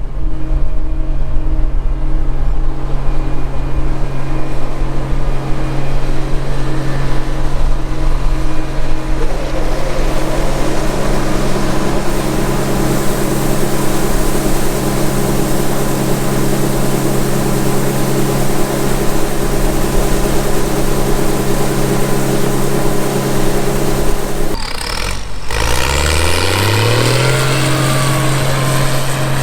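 Combine harvester running steadily in the field, a constant engine drone with a rushing mechanical noise that grows stronger after about ten seconds. Near the end the sound breaks off briefly and an engine's pitch climbs quickly back up to a steady speed.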